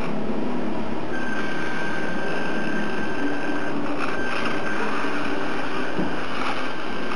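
Drivetrain of a mini RC crawler: small electric motors taken from GWS servos driving a Tamiya 1/32 Mini Monster gearbox, running steadily with a geared whir and a high whine that comes in about a second in as the truck crawls.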